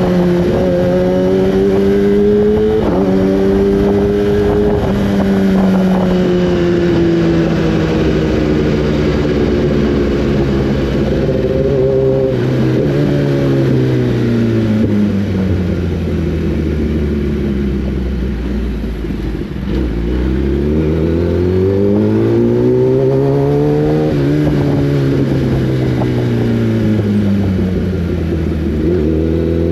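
Inline-four superbike engine on the move, its pitch climbing and dropping back with each gear change. It winds down to a low steady drone about two-thirds through, then pulls up hard again and eases off near the end, with wind rush underneath.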